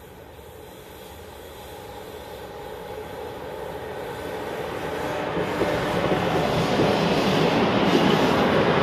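Electric freight train led by a Siemens Vectron locomotive approaching and passing close by, with a second locomotive behind. The rumble of wheels on rails grows steadily louder over several seconds and is loudest as the locomotives go by near the end.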